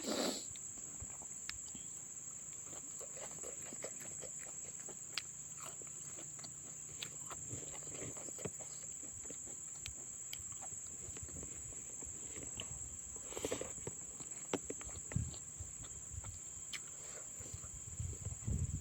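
Steady, high-pitched insect chirring, like crickets, with faint scattered clicks and soft mouth and eating noises from someone eating fish head.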